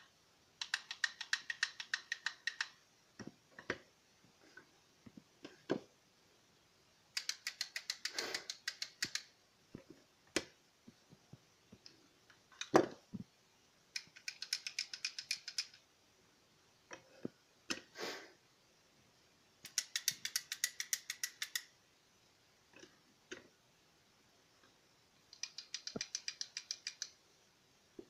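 Handmade wooden teether rattles, elm and beech rings with wooden beads on a dowel, shaken one after another: five bursts of about two seconds of rapid clacking, the beads ringing with a clear woody tone. Single wooden knocks fall between the bursts.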